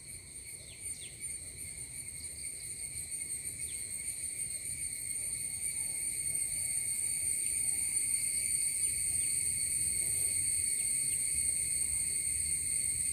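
Steady, high, continuous insect trill that grows louder over the first half and then holds, with a few faint short falling chirps.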